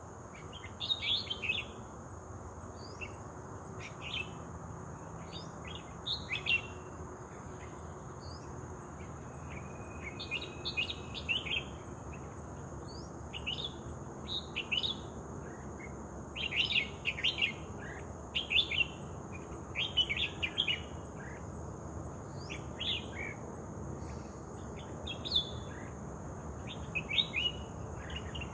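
Small birds chirping in short clusters of quick high notes every second or two, over a steady high-pitched insect drone.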